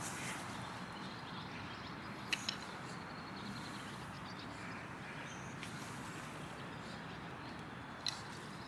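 Steady soft hiss, with two sharp clicks a little over two seconds in and another near the end.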